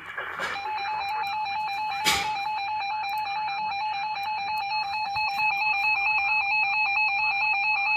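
Emergency alert attention tone: a steady, slightly stepping electronic alarm tone that starts about half a second in and holds, with a sharp click about two seconds in. It is the signal that goes before a broadcast weather warning.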